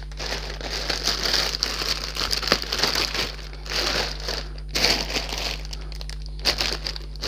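Sealed plastic bags of model-kit parts crinkling as they are handled and packed back into a cardboard box, with a couple of light knocks.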